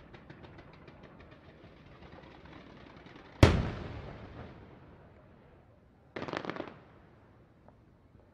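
Professional aerial fireworks display: a rapid run of faint crackling pops, about seven a second, then one loud bang about three and a half seconds in that echoes as it fades, and a short cluster of quick cracks a little after six seconds.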